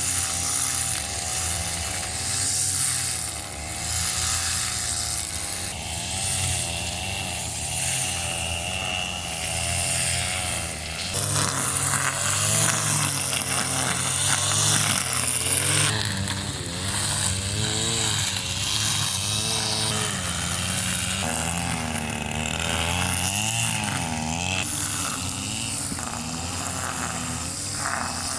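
A small engine running, its pitch wavering up and down, with abrupt changes in sound about 11, 16 and 21 seconds in, as from separate takes.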